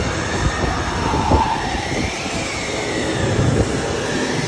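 Wind from the ride's effect blowers buffeting the phone's microphone: a steady rushing noise with low rumbling gusts. A faint whine rises and falls underneath.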